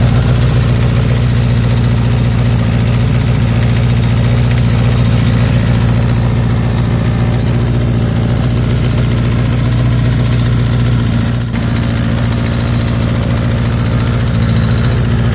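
Air-cooled 1984 Kawasaki GPZ motorcycle engine idling roughly, its carburetors freshly worked on; the owner expects it will need a good going over. The running dips briefly about eleven seconds in, then steadies.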